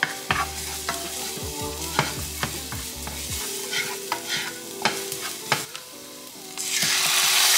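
Minced garlic sizzling in oil in a nonstick frying pan, stirred with a wooden spatula that knocks and scrapes against the pan now and then. Late on, marinated chicken is tipped into the hot pan and the sizzle suddenly becomes much louder and denser.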